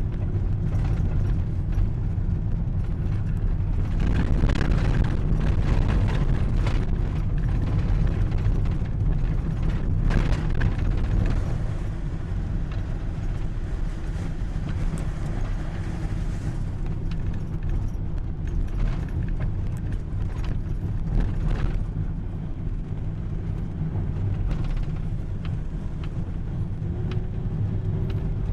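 Steady low rumble of a running vehicle engine, with some lighter rattling and noise on top.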